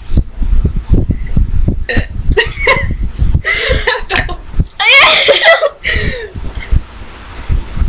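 Girls burping after drinking Sprite, a run of separate burps of different lengths, the longest and loudest about five seconds in.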